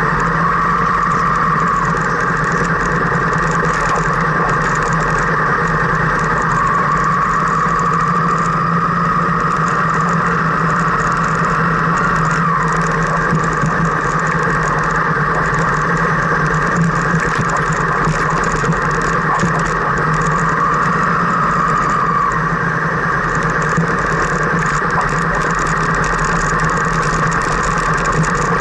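Car engine and road noise heard from inside the car, steady throughout, while driving over a rough, root-damaged road surface.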